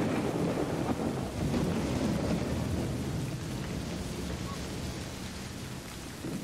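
Thunderstorm: heavy rain falling steadily under a continuous low rumble of thunder, slowly fading.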